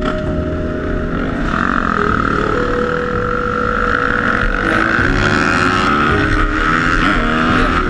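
Several dirt bike engines running and revving as the riders pull away together. The engine pitch rises about a second and a half in and then holds steady.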